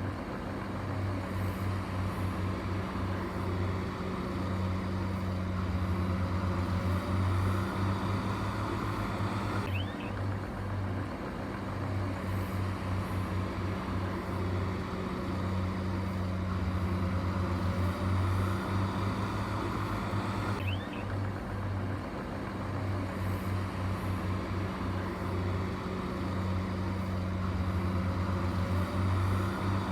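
Heavy diesel engine of earthmoving machinery running steadily, with a low, pulsing throb.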